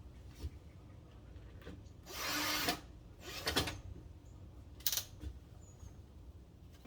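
A cordless screwdriver running in a short burst of under a second, then a shorter one, as the screws of a window's locking gear rail are driven; clicks and knocks of the tool and hardware around them.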